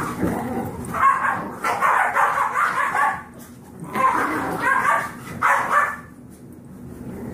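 Five-week-old Yorkshire terrier puppies barking and yipping as they play-fight, in two runs of short, choppy bursts that fall quiet about six seconds in.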